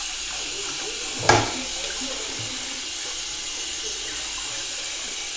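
Kitchen tap running steadily into a sink as dishes are washed by hand, with one short, sharp knock about a second in.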